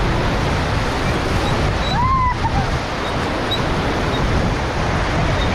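Rushing white water of river rapids, with wind buffeting the microphone. About two seconds in, a short high call rises and falls.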